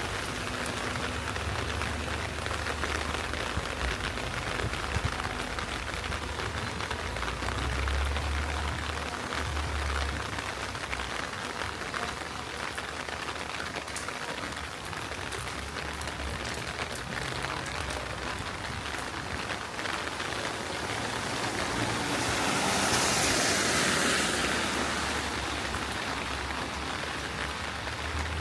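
Heavy rain falling steadily on a city street, an even hiss of rain. A louder hiss swells and fades about three quarters of the way through.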